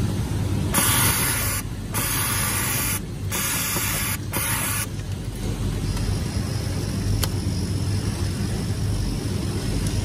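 Industrial overlock sewing machine running in four short bursts of about a second each, a hissing rush with brief gaps as the operator feeds a ribbed knit band. The bursts stop about five seconds in, leaving a steady low machine hum.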